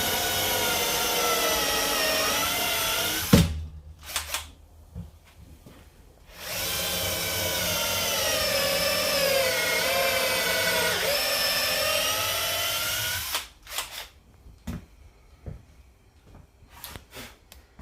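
Power drill running a small bit into wood to pre-drill screw holes, in two runs: one of about three seconds ending in a sharp knock, then after a pause a longer one of about seven seconds. The motor's pitch wavers as it loads in the wood.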